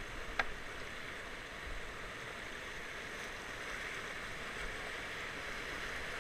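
River rapids rushing steadily over rocks, heard close to the water, with a single sharp click about half a second in.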